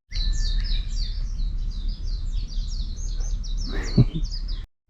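A small bird chirping in a fast, continuous run of short, high, falling notes, over a steady low rumble. A brief, lower sound stands out about four seconds in.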